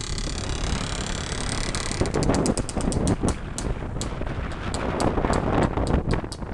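Izh-56 motorcycle's single-cylinder two-stroke engine running a short way ahead, heard from a following car over wind and road noise. From about two seconds in there is a run of irregular sharp crackles, a few a second.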